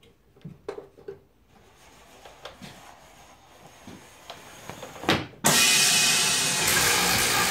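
Light knocks as the plastic-holding frame is handled, then a sharp thud about five seconds in as the frame is brought down onto the vacuum-former table. Right after, a loud steady rush of air with motor hum begins as the vacuum pump and tank pull through the table.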